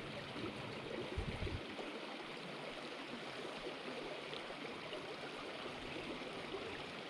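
Small rocky river running past, a steady rush of flowing water. A brief low thump comes a little over a second in.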